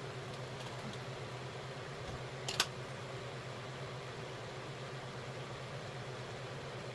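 Steady low hum with an even hiss of background noise, and one brief sharp click about two and a half seconds in.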